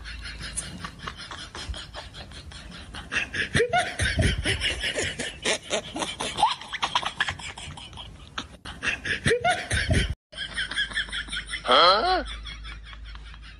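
People laughing in quick repeated bursts with short high cries. The sound cuts off abruptly about ten seconds in, and a single loud voiced cry follows about two seconds later.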